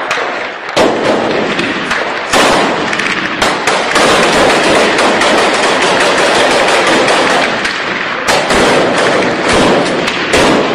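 Heavy small-arms gunfire in a firefight: automatic rifles firing rapid, overlapping shots almost without pause, with brief let-ups about a second in and again near the end.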